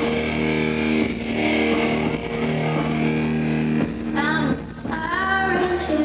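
Live rock band playing, with electric guitar chords held over a steady bass. A woman's singing voice comes in about four seconds in.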